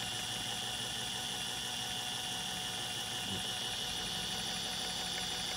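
Electric drill running slowly and steadily, turning a small wind generator's shaft: an even motor hum with a steady high whine.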